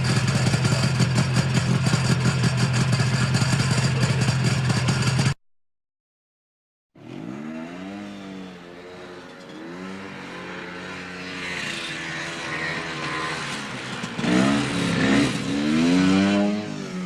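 Off-road ATV engine running steadily at high revs, cut off abruptly about five seconds in. After a second and a half of silence, an ATV engine revs up and down repeatedly, with the loudest revs near the end.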